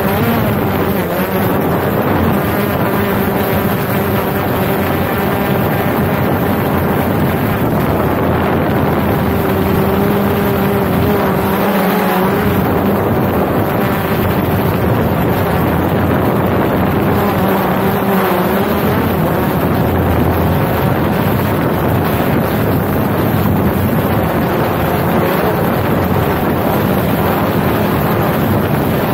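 Autel EVO II quadcopter's motors and propellers buzzing close to the microphone, a steady multi-pitched drone whose pitch wavers a couple of times as the drone climbs, with wind on the microphone.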